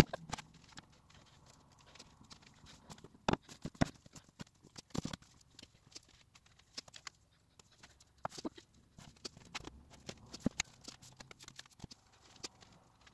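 K-pop albums and books being taken off a white cube shelf and stacked in piles: irregular knocks and clatters, the loudest about three to four seconds in.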